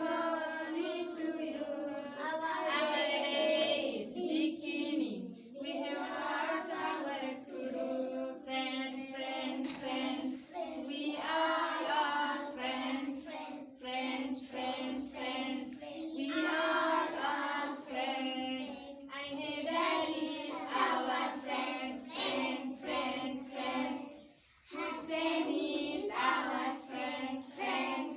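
A group of young children singing together in chorus, with a short break about 24 seconds in.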